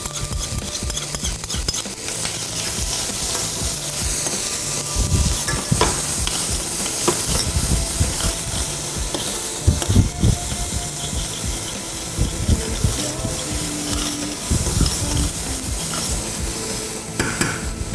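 Chopped onion sizzling in butter in a stainless steel saucepan, stirred with a utensil that scrapes and knocks irregularly against the pan over a steady hiss of frying.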